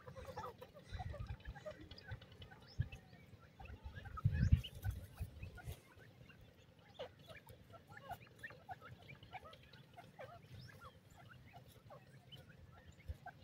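Grey francolins giving many short calls and chirps, scattered throughout. Low rumbles come and go, the loudest about four and a half seconds in.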